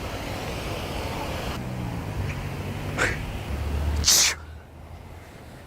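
A sneeze: a short catch of breath about three seconds in, then a sharp hissing burst about a second later. Steady background noise runs underneath.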